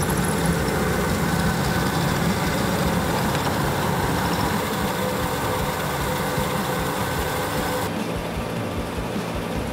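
A treadmill running with a motorised LEGO Technic truck driving on its belt: a steady mechanical whir of the treadmill motor and belt mixed with the model's motors and gears. The whir turns duller near the end.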